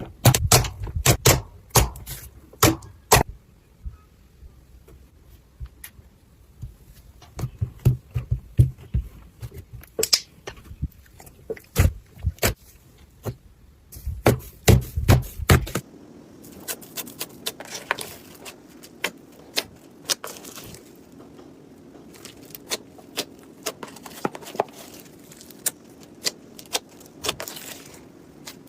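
Slime being squished and pressed by hand, giving irregular sharp pops and clicks. About 16 seconds in the sound changes to lighter, quicker crackles over a steady low hum.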